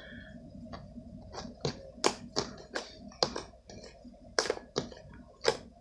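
Slime being worked by hand and baking soda being added: a string of irregular sharp clicks and light taps, about two a second.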